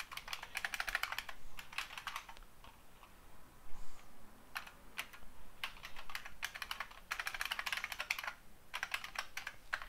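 Typing on a computer keyboard: runs of quick keystroke clicks broken by short pauses.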